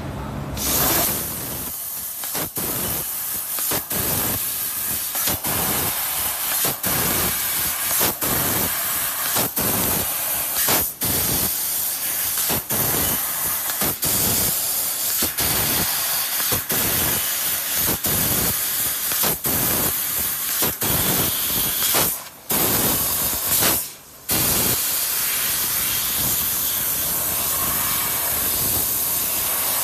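Nitrogen assist gas hissing from the nozzle of a 3 kW IPG fiber laser cutting head as it cuts small holes in 3 mm mild steel. The hiss cuts out briefly over and over, about once a second, with two longer breaks about three-quarters of the way through.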